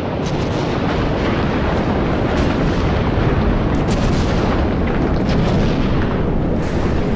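Magma fountaining in an erupting volcanic crater: a loud, continuous low rush with many sharp crackles and pops of spattering lava.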